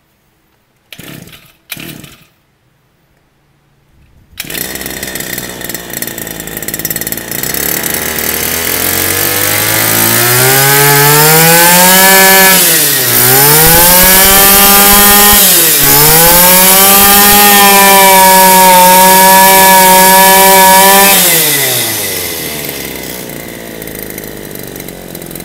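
Hitachi CG23E1 brush cutter's 23cc two-stroke engine being pull-started: two short tugs on the starter cord, then it fires about four seconds in. It climbs to high revs, drops off sharply twice, holds at high revs, and settles back to idle near the end.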